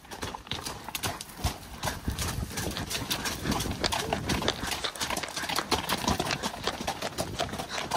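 Hooves of two horses walking on a gravel track, an irregular run of crunching hoofbeats.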